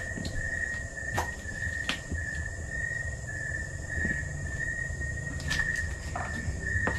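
Night insects calling: a steady, high pulsing trill with a fainter high hiss above it. Under it are a low rumble and a few sharp clicks.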